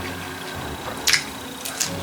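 Eating sounds: a person chewing, with two short sharp clicks of a utensil, about a second in and near the end, over a low steady hum.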